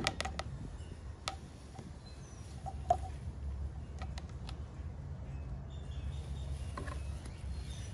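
Motor oil glugging out of a quart bottle into a funnel in the generator's oil fill: quick clicking glugs at the start, then only a few single glugs. A low steady rumble runs underneath.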